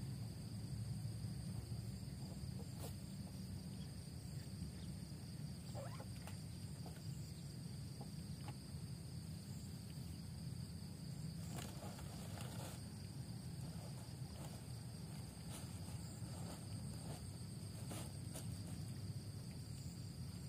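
Insects trilling steadily in a high, unbroken buzz over a low steady rumble. Occasional rustles and light knocks of someone moving through grass and brush and handling netting, the busiest around twelve seconds in.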